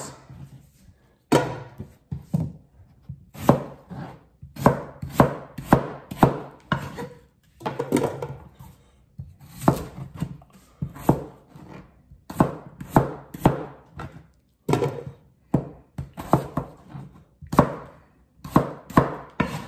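Chef's knife chopping white potatoes into small dice on a plastic cutting board: sharp knocks of the blade striking the board in quick runs of several strokes, with short pauses between runs.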